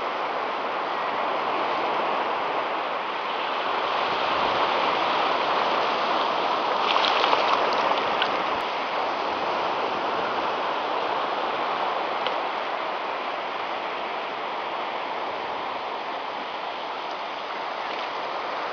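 Surf breaking and washing up a sandy beach: a steady rush that swells for a few seconds early on. A few faint ticks come about seven seconds in.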